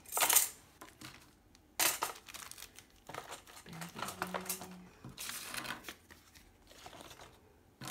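Packaging crinkling and rustling in several short bursts as kit pieces are handled.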